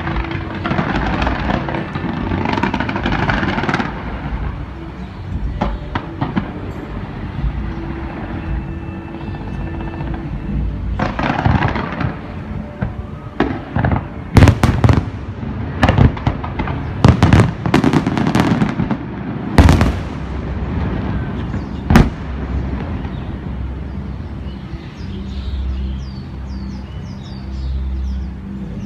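Fireworks going off in an aerial display: a dense spell of rapid popping at first, then a run of loud, sharp bangs about halfway through, the last a few seconds before the end.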